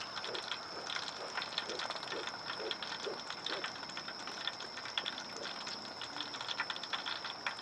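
Crickets singing in a steady high chorus, with scattered sharp clicks over it and a run of soft low knocks about two a second that stops about halfway through.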